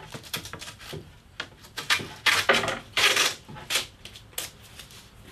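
Wide masking tape being pulled off its roll in a series of short pulls and wrapped around a bundle of thin cedar strips, with light clicks and rubbing from the wooden strips.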